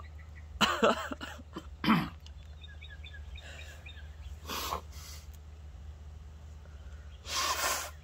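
A man coughing and clearing his throat in a few short bursts, then one longer blow of the nose into a tissue near the end; the chili heat of an extremely hot gummy bear has made his nose run.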